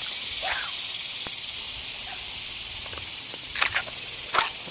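Steady high-pitched chorus of insects, with a few faint short sounds about half a second in and again near the end.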